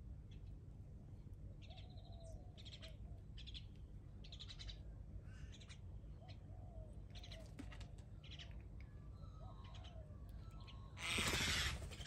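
Wild birds calling outside: a run of short, high chirping calls about once a second, with a few lower, softer calls among them, over a steady low background rumble. Near the end comes a brief, loud rush of noise lasting under a second.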